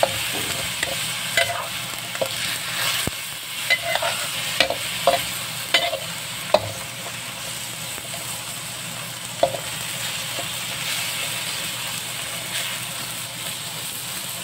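Ground pork sizzling in a wok while a metal spatula stirs and scrapes it, with sharp clinks of the spatula against the pan mostly in the first half. The meat's juices are still cooking off.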